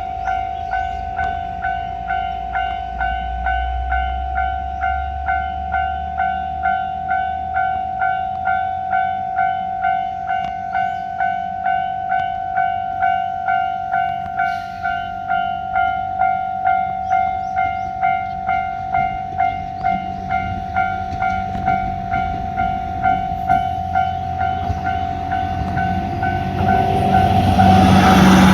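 Railway level-crossing warning alarm ringing: one steady pitched tone repeating about one and a half times a second. Near the end a train's noise builds up loud over it as the train reaches the crossing.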